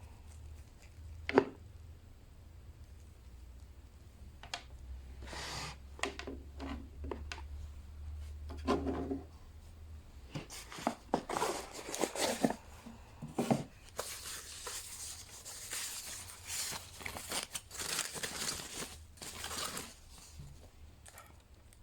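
Cardboard box and packaging being opened by hand: rustling, crinkling and tearing of paper and plastic wrap, broken by scattered sharp clicks and knocks, the loudest a single click about a second in. The rustling is busiest in the second half.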